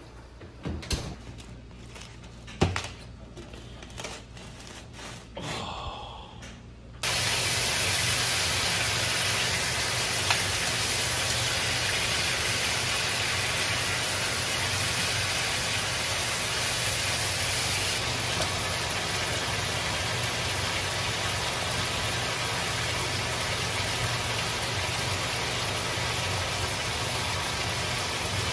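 Chicken pieces and ginger sizzling steadily in a hot nonstick wok, starting suddenly about seven seconds in. Before that come a few sharp knocks and clatters of a baking tray and the oven.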